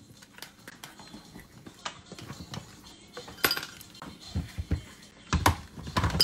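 Hard plastic clicks and knocks as a blender's lid and top-mounted motor unit are fitted onto its pitcher, with the loudest knocks about three and a half seconds in and again near the end.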